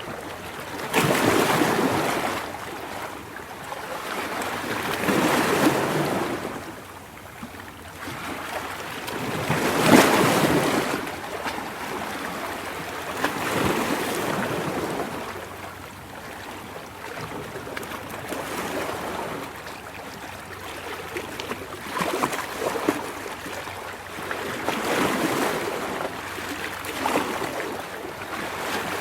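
Ocean surf: waves breaking and washing in, a surge of rushing water every three to five seconds. The loudest surge comes about ten seconds in.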